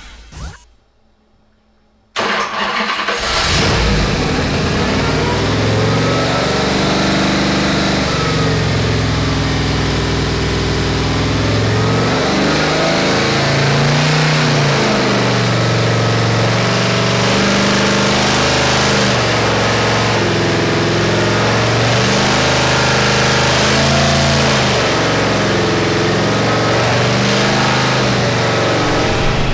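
Freshly built Holden 308 V8 on an engine dyno starting up about two seconds in, then running fast with its revs drifting up and down. This is the new flat-tappet camshaft being run in. A brief logo sting fades out just before the engine catches.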